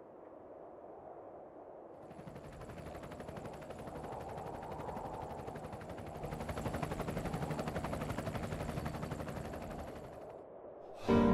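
A fast, continuous rattle of sharp cracks that swells over several seconds and then dies away, sounding like automatic gunfire. A music track cuts in at the very end.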